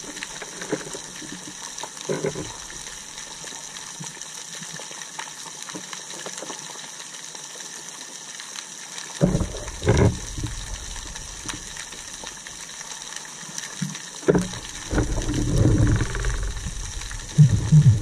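Underwater ambience picked up by an action camera in its waterproof housing: a steady hiss with faint crackling. From about halfway, low rumbling surges of water moving against the housing come and go, with a run of quick low pulses near the end.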